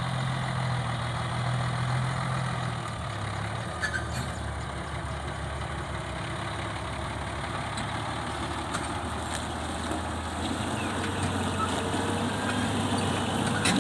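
Diesel engine of a Scania logging truck carrying a full load of logs, running steadily at low speed as the truck crawls along. Its low engine note drops to a lower pitch about three seconds in.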